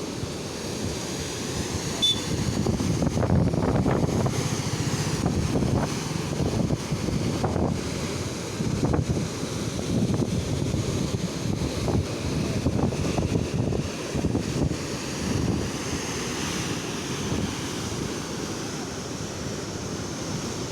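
Steady rush of flood water pouring over a dam, mixed with wind buffeting the microphone in uneven gusts.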